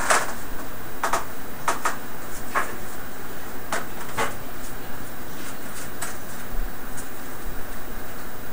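A string of irregular light clicks and taps as laptop parts are handled, over a steady hiss.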